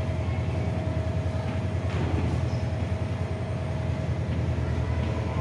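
A steady low mechanical hum with a fast flutter and a faint steady whine above it. A few faint taps of chalk on a blackboard sound as small cells are drawn.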